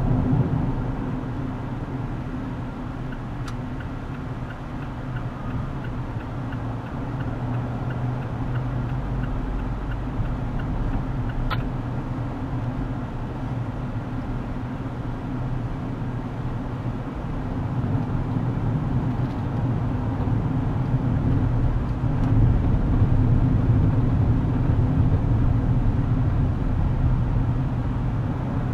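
Steady road and engine noise heard inside a moving car's cabin at highway speed, a low drone that grows louder in the last third. A single sharp click sounds about midway through.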